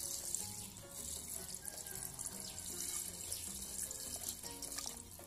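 Water poured in a steady stream into an aluminium pressure cooker of spiced goat legs, splashing onto the meat and then into the rising liquid; it tails off near the end.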